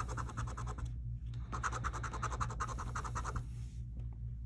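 Scratch-off lottery ticket being scraped with a hand-held scratcher, rapid back-and-forth strokes in two spells that stop about three and a half seconds in.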